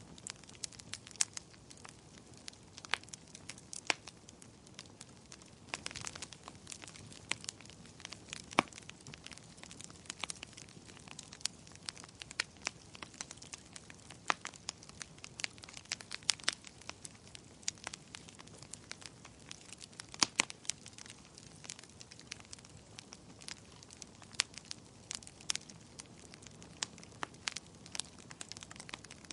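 Wood fire crackling: frequent irregular sharp pops and snaps over a soft steady hiss.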